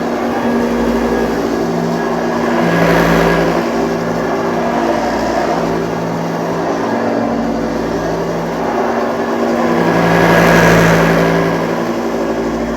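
1985 Hoover Junior Dirtsearcher U1206 upright vacuum cleaner running: a steady motor hum under a rush of air. It swells louder about three seconds in and again near the end.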